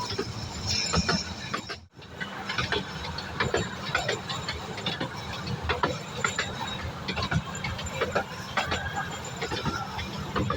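A 12-inch gauge miniature railway train running, with a steady rumble and irregular clicks from the wheels on the track. The sound drops out briefly about two seconds in.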